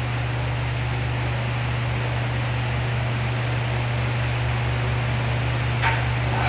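Steady hiss with a low mechanical hum, like a running fan, and one short click near the end.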